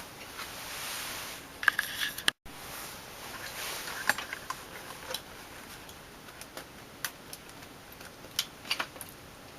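Scattered light clicks and rustling of hands handling a hard drive and a computer's plastic case as the drive is worked into its bay, with two soft swells of hiss.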